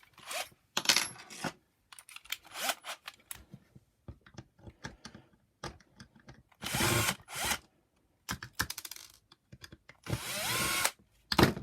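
Power screwdriver running twice, about a second each time, backing out the two screws that hold the end cap of a vacuum power nozzle, with clicks and knocks of plastic parts being handled between the runs.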